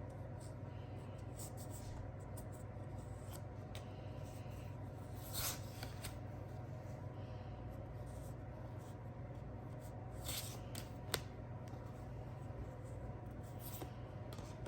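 Board game box and its cardboard and paper contents being handled during an unboxing: occasional short rustles and scrapes, and one sharp click about eleven seconds in, over a steady low hum.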